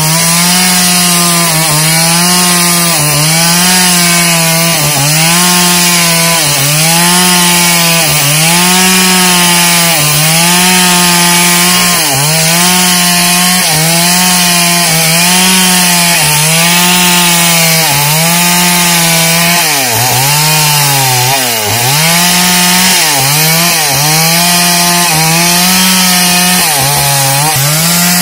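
Stihl MS 381 two-stroke chainsaw running hard as it rips lengthwise along a coconut-palm log to square it. The engine pitch dips and recovers about once a second as the bar is pressed into the wood, with a few deeper bogs about two-thirds of the way through.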